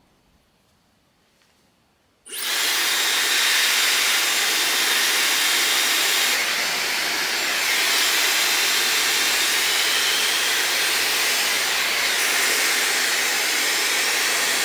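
Dyson Supersonic hair dryer switched on about two seconds in, after near silence, then blowing a steady, even rush of air.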